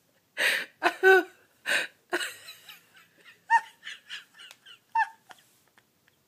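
A woman laughing uncontrollably: loud breathy bursts of laughter, then high squeaky gasps and squeals that trail off about a second before the end.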